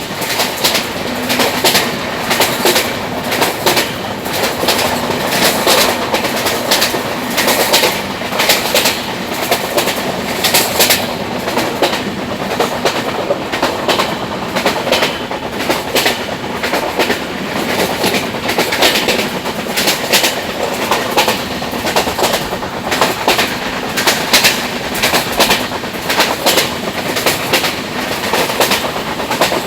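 A train running along the track: wheels clicking over the rail joints in repeated clatters over a steady rolling noise.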